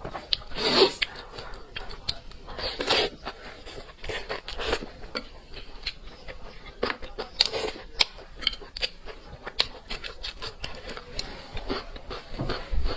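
Close-miked mukbang eating: utensils clicking and scraping against dishes, with a few louder bursts of eating noise about a second in, around three seconds and past seven seconds.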